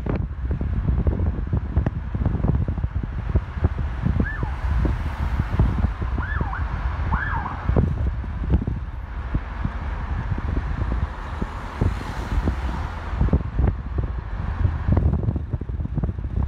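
Wind buffeting the microphone in a moving car, with road noise, and a few short high squeaks between about four and eight seconds in.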